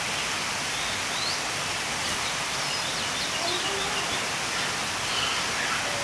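Aviary ambience: a steady rushing noise, with scattered short chirps and whistled calls from birds.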